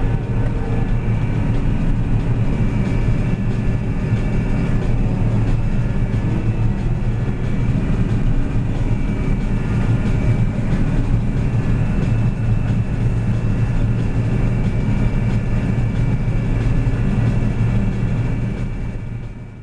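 John Deere 9650 STS combine running steadily while harvesting canola, heard from inside the cab: a deep, even drone with a faint steady high whine over it. It fades out near the end.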